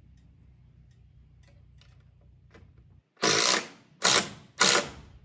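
Power drill driving a fastener into a board in three short, loud bursts a little over half a second apart, near the end, after a low steady hum.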